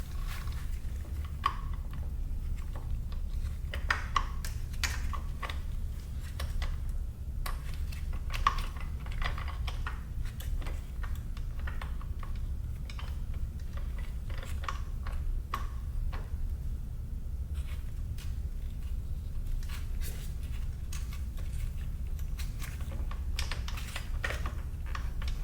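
Irregular light clicks and taps of hand tools and small parts being handled during work on a motorcycle, over a steady low hum.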